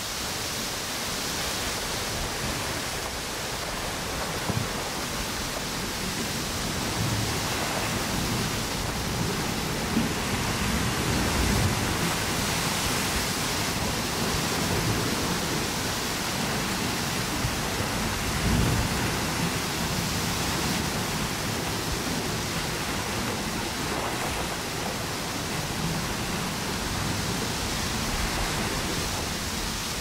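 Strong wind and ocean waves on a tropical beach: a steady rushing noise of surf and wind through palm trees, with gusts swelling briefly now and then.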